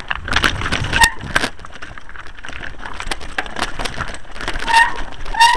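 Mountain bike clattering down a rough, stony trail: a fast, irregular run of knocks and rattles as the tyres and frame hit the rocks, with short squeals about a second in and again near the end.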